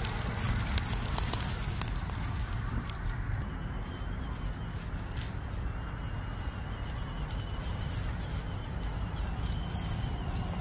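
Axial Capra RC rock crawler's electric motor giving a faint, slightly wavering high whine, with a few sharp clicks and crunches of its tyres on gravel, over a steady low rumble.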